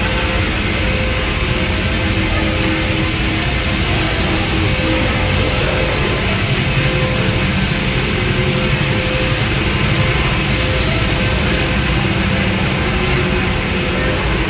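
Steady mechanical rumble and hum, like a large engine running, with a few steady humming tones and no break.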